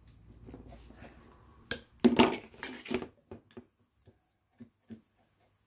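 Small metal carburetor parts and hand tools clinking and clattering on a workbench as a throttle-cable bracket and its fittings are taken off. The loudest is a burst of ringing metallic clinks about two seconds in, followed by a few light taps.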